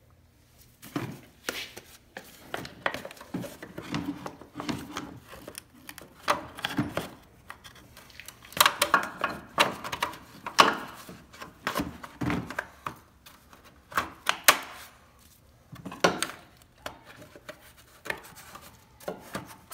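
Irregular clicks, knocks and rubbing of a hand tool working in a car's engine bay as the five-cylinder engine's crankshaft is turned over by hand to line up the timing marks.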